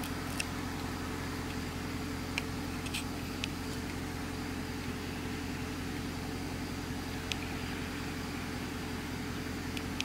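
Dodge Charger SRT8's 6.4-litre HEMI V8 idling at a standstill, a steady low drone heard from inside the cabin, with a few faint clicks.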